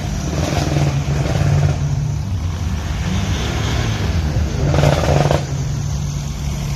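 Car engines running as cars drive slowly past one after another, with a steady low hum and a louder surge of engine noise about five seconds in.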